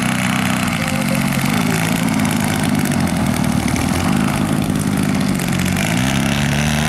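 Extreme Flight Slick 580 RC aerobatic plane's motor and propeller running at low throttle on the ground, with a steady low hum that wavers, then rises in pitch near the end as the throttle comes up.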